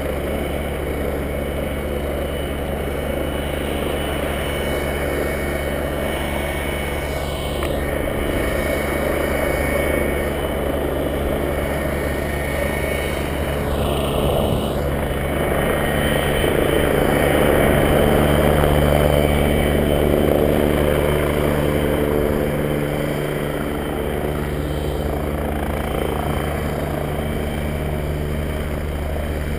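Helicopter engine and rotor running steadily for take-off, swelling louder about halfway through, then easing back a little.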